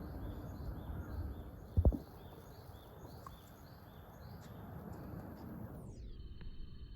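A bird calling in a rapid series of short, high chirps, about three a second, over a steady outdoor noise bed, stopping about six seconds in. A brief low thump just under two seconds in is the loudest sound.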